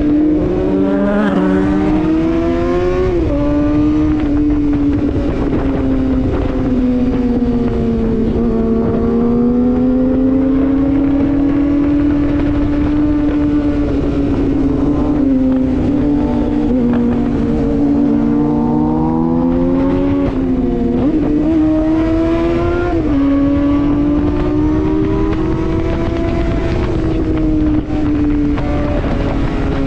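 Suzuki GSX-R superbike's inline-four engine running under way, its pitch rising and falling with the throttle. It revs up sharply at the start and drops back about three seconds in, then swells slowly, and rises and falls again past the twenty-second mark.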